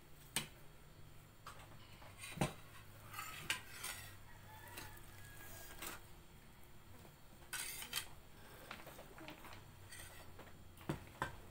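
Dishes and a serving spoon clinking now and then as rice is served onto a plate at the table: a few separate light knocks spread over several seconds.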